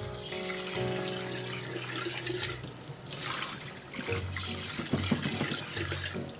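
Kitchen faucet running, a steady stream of water splashing into a glass vase being filled and rinsed in the sink.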